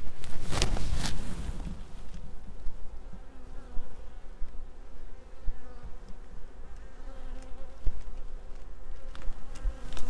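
Honeybees buzzing around an occupied hive, a steady wavering hum, with a couple of sharp clicks about half a second and a second in.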